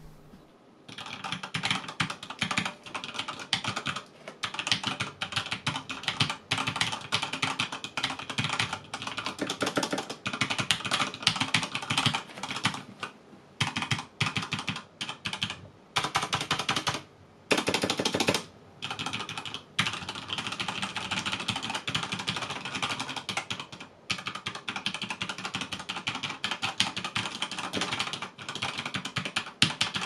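Typing on a Thermaltake Argent K5 RGB mechanical keyboard with Cherry MX Speed Silver linear switches: a fast, continuous clatter of key strokes that starts about a second in and is broken by a few short pauses.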